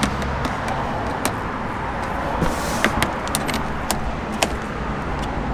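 A hand screwdriver turning side-skirt screws into the car's sill, giving light, irregular clicks and taps over a steady background hiss.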